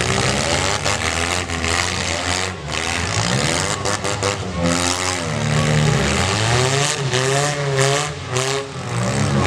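Demolition derby cars' engines revving hard, their pitch rising and falling again and again as the cars accelerate.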